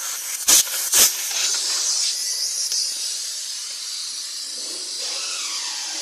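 Pressurized air hissing steadily as it is let out of a refrigerator's sealed refrigerant system, releasing the test pressure, after two sharp clicks about half a second and a second in.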